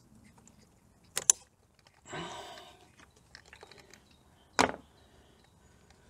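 Hard plastic clicks and knocks from fuel pipe quick-release connectors being pressed and tugged by hand, connectors that are refusing to release: a quick double click about a second in, a short rustle, a few light ticks, and a louder click about three-quarters of the way through.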